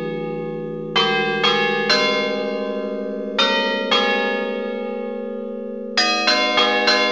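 Church bells struck, each stroke ringing on with a long humming decay: a few separate strokes in small clusters, then near the end a quick run of strokes, about three a second.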